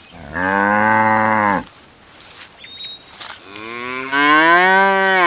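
A cow mooing twice: a steady low moo of about a second and a half, then a longer moo that rises in pitch and grows louder.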